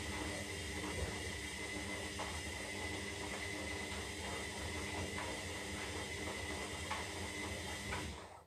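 Zanussi Lindo 300 washing machine drawing in water: a steady hiss with a hum underneath and scattered light knocks, which cuts off suddenly near the end.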